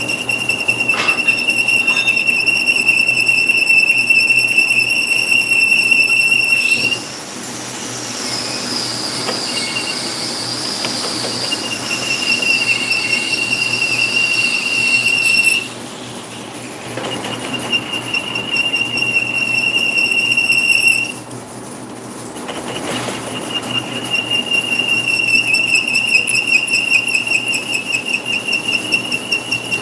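Lathe cutting tool facing a metal ring held in the chuck, squealing with a steady high-pitched chatter tone over the running lathe. The squeal jumps higher in pitch for a few seconds in the middle, then cuts out twice and comes back.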